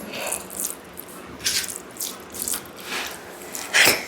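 Close-miked wet eating sounds: short squelchy smacks and slurps of a mouthful of dal and rice, about seven in a few seconds, the loudest near the end.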